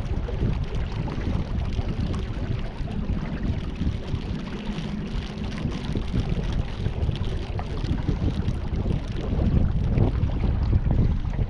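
Wind buffeting the microphone aboard a small boat on the river, with water moving around the hull. A faint steady hum runs through the middle for several seconds.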